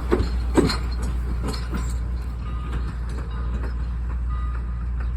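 Train rolling along the track: a steady low rumble, with several sharp knocks and clanks in the first couple of seconds.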